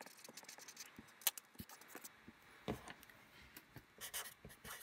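Faint scratching with scattered light clicks and taps, the sharpest about a second in and again near the middle.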